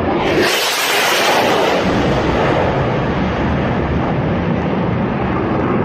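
Military jet fighter passing low overhead: a loud, rough roar that surges in sharply just after the start, its hiss brightest for the first two seconds. A crackling low rumble carries on after it.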